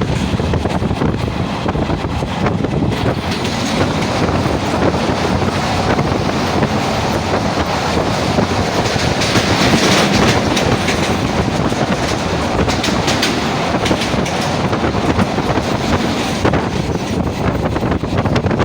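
Train running along the track: a steady rumble with the wheels clicking over the rails, louder for a few seconds around the middle.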